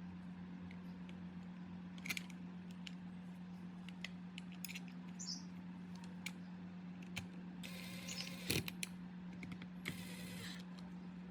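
Small hard parts being handled, with scattered light clicks and taps over a steady low hum, and two brief rasping noises, one about eight seconds in and one about ten seconds in.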